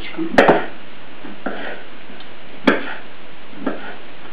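Kitchen knife cutting raw meat into small pieces on a wooden cutting board, the blade knocking on the board at uneven intervals: a quick double knock about half a second in, another near three seconds, and fainter ones between, over a steady background hiss.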